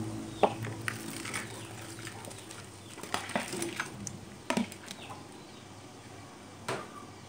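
Fried catfish and tofu pieces tumbling from a plastic bowl into a wok of simmering coconut-milk sauce, with scattered knocks and scrapes of a metal slotted spatula against the bowl and pan. The louder knocks come a little past the middle and once near the end.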